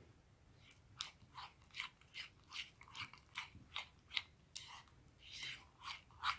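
Fingers kneading and squeezing soft homemade pink slime in a ceramic bowl: a faint run of short, wet, sticky squelches, about two or three a second.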